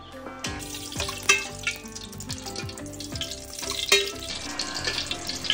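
Oil sizzling and spitting in a hot wok, with background music and its beat over it.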